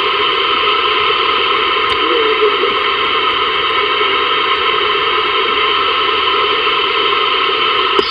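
Steady static hiss from a Ranger VR-9000 11-meter multimode radio's speaker as it is tuned across the upper CB band around 27.46 MHz, with no station coming through.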